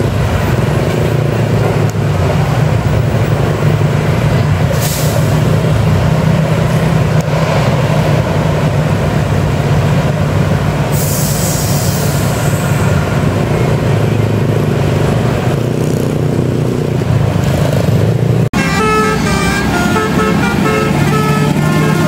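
Bus engines and road traffic running with a steady heavy low rumble, with a short hiss about five seconds in and a longer hiss around eleven seconds. Near the end the sound cuts, and a bus's telolet musical air horn plays a quick tune of stepping notes.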